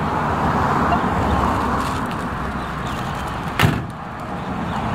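Vintage van's door being shut, a single sharp bang about three and a half seconds in, over steady street traffic noise.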